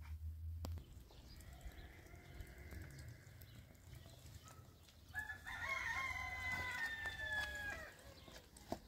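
A rooster crowing: a faint crow early on, then a louder, clearer crow of about two and a half seconds starting about five seconds in, its pitch sinking slightly toward the end. A few light knocks and scuffs around it.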